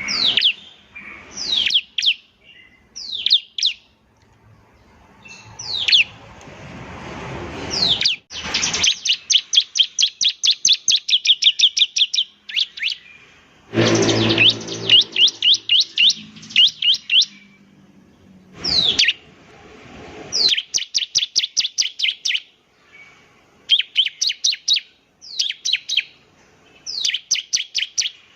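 Ciblek (prinia) song: sharp, high notes sweeping downward, and rapid runs of repeated notes, about six or seven a second, in bursts of one to two seconds with short gaps. Two louder rushing noises break in, about a quarter of the way in and near the middle.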